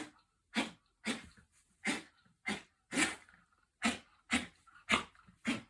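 A Bichon Frise making a rapid series of short, noisy 'hau hau' breaths, about two a second, which the owner suspects may be a reverse sneeze.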